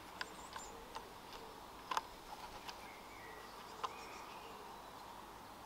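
Scattered light clicks and ticks from a ball head being turned by hand onto the 3D-printed plastic camera plate of a barn door tracker. The sharpest clicks come about two seconds in and again near four seconds.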